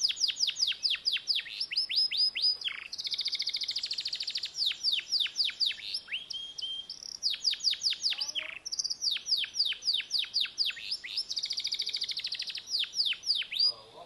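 Domestic canary singing a long unbroken song: runs of quick falling notes, several a second, twice giving way to a fast rolling trill.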